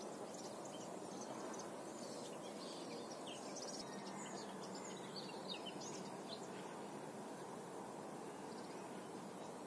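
Outdoor ambience: small birds chirping and twittering in quick, high calls over a steady background hiss, the chirps thinning out about two-thirds of the way through.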